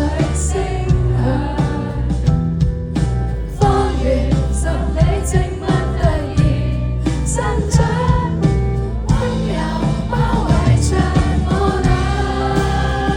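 Indie pop band playing a song, with a singer's voice over steady bass, drums and cymbals.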